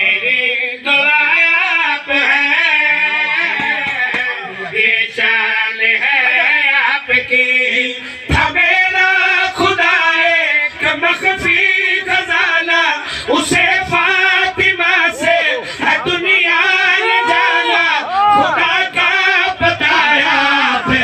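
Men singing a devotional Urdu qasida (manqabat) for Fatima Zahra, a lead voice at a microphone with a second voice joining in, in long wavering sung lines. Sharp knocks come in among the singing from about eight seconds in.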